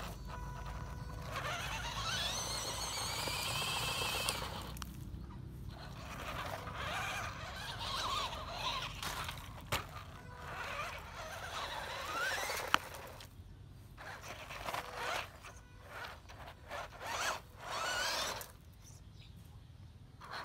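Electric RC monster truck driven in repeated throttle bursts on loose gravel: the motor whines, rising and falling in pitch with the throttle, while the tyres spin and scrape through the stones, with short pauses between runs. One sharp click about two-thirds of the way through.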